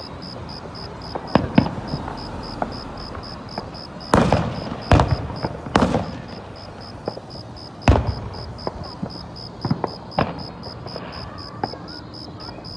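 Aerial firework shells bursting in a string of sharp booms and cracks. The loudest three come close together about four to six seconds in, another heavy one near eight seconds, and smaller pops are scattered between.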